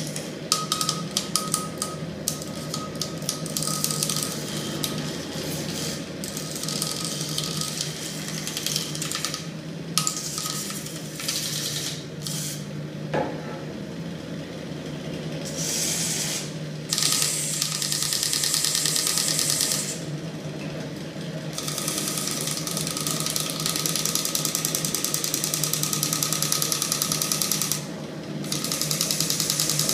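Homemade magnet-driven crankshaft engine rig, turned by a small electric motor, running with a steady hum and fast mechanical ticking. In several stretches a harsher, louder metallic rattle comes in and drops out again.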